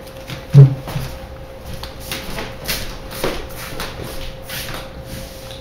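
A person getting up from a chair and moving away: a dull thump about half a second in, followed by repeated rustling and shuffling.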